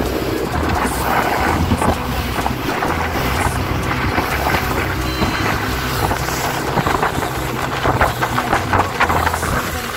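Small open motorboat under way: its engine runs steadily under the splash and rush of water along the hull, with wind buffeting the microphone.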